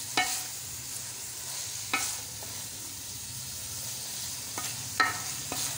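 Shredded cabbage being stirred into frying mutton and gravy in a metal pot with a large spoon, over a steady sizzle. The spoon knocks sharply against the pot a few times, loudest about five seconds in.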